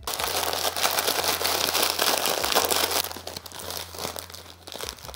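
Foil-lined plastic snack bag of crushed uncooked ramen noodles crinkling and rustling as it is pulled open by hand, loud for the first three seconds and then quieter.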